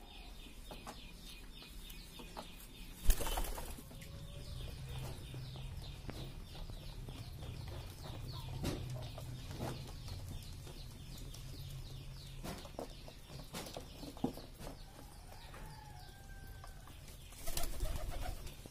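Racing pigeons in a loft: a sudden burst of wing flapping about three seconds in and another near the end, with scattered light ticks of pecking at grain in between.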